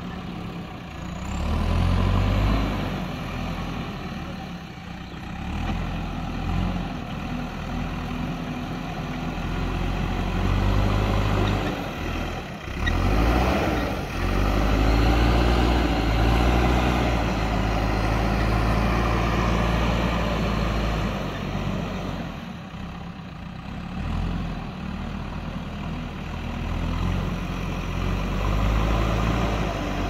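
JCB backhoe loader's diesel engine working as the front bucket pushes and levels soil, its loudness rising and falling repeatedly with the load.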